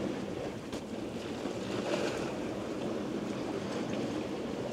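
Steady rush of sea water and waves along the hull of a sailing yacht under way, with wind buffeting the microphone.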